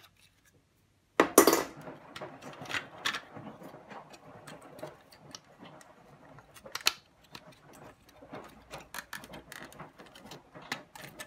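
Handling noise from a washing machine's circuit board being fitted into its plastic control-panel housing: a loud plastic clatter about a second in, then scattered light clicks and knocks as the parts are worked together.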